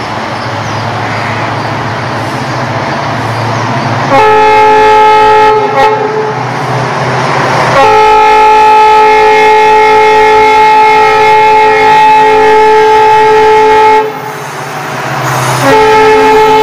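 WDG-4D (EMD GT46ACe) diesel locomotive approaching with a low rumble, then sounding its multi-tone horn three times: a short blast about four seconds in, a long blast of about six seconds, and another starting near the end.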